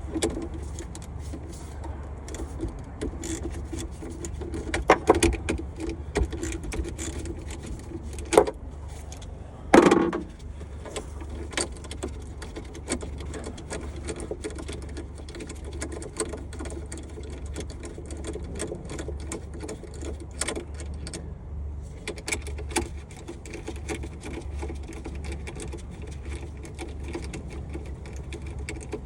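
Socket wrench clicking and metal tools clinking as the 13 mm nuts are worked off the battery overload fuse terminals, with a few sharper metal knocks along the way. A steady low hum runs underneath.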